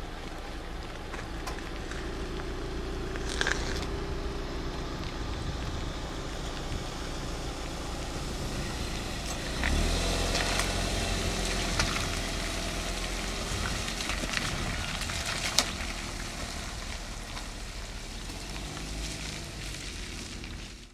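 Steady outdoor rumble. About halfway through, a small car drives along a wet road, and its engine and tyre noise swell for several seconds. A few sharp clicks and ticks are scattered through it.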